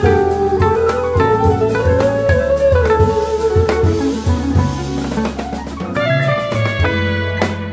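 Jazz band playing live, with an electric archtop guitar out front over drum kit and bass.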